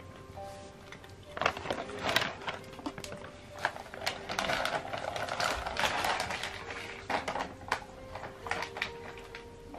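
A cat crunching dry food from a bowl: an uneven run of quick clicks and crunches, over faint background music with held notes.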